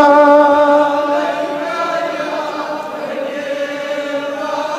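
Male voice chanting a Darood (salawat on the Prophet), holding a long steady note on the refrain's closing 'wasallam'; about a second in it drops to a softer held chant.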